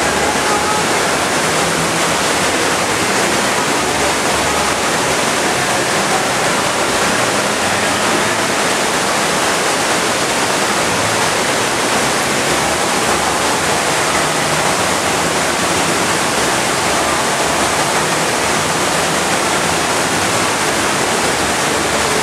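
Loud, steady rushing of pumped water pouring through water-park play features, an even hiss with no breaks.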